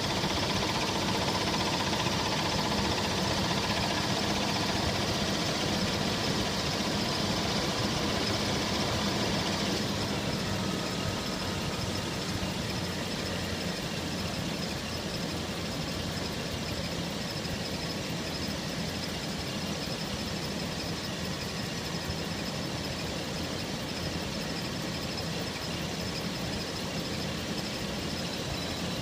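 Toyota Tacoma engine running steadily, with a knock from inside the engine.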